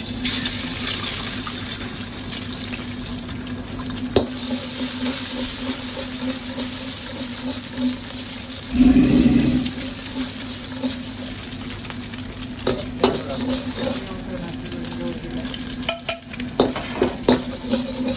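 Egg and vegetables sizzling in hot oil in a wok, with a metal wok ladle scraping and knocking against the pan several times. Under it runs a steady low hum, and about halfway through there is a loud burst of sizzling.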